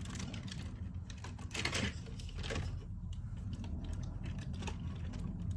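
Plastic toy cars being handled: a run of light clicks and knocks, with a short rustling scrape about one and a half to two seconds in, over a steady low hum.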